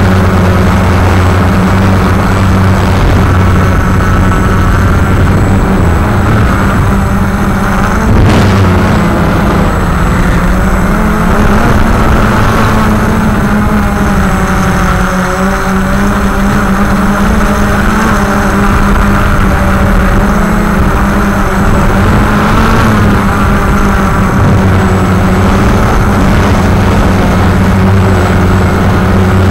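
Walkera QRX350 Pro quadcopter's brushless motors and propellers droning steadily in flight, heard close up through its onboard camera, the pitch shifting a little as it manoeuvres. A sharp click sounds once about eight seconds in.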